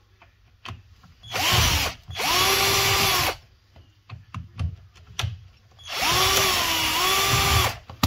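A drill-driver with a screwdriver bit backing out screws from a fridge door's hinge bracket. Its motor whines in three runs, a short one about a second and a half in, a longer one right after, and another long one near the end, each rising in pitch as it spins up and then holding steady, with light clicks of the bit between runs.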